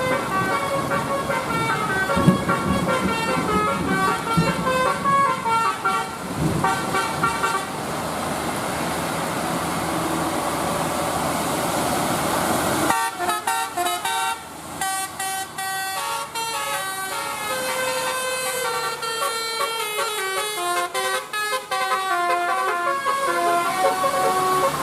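A bus's telolet musical air horns playing a melody of short stepping notes, over the hiss of heavy rain. About 13 seconds in, the rain hiss drops away abruptly and the horn melody carries on clearly.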